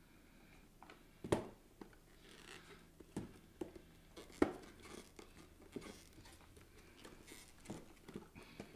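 Hands working a boxed Pop! vinyl figure in a clear plastic protector case to get it open: a handful of sharp clicks and knocks, the loudest about a second in and again near the middle, with soft scraping and rustling of plastic and cardboard between them.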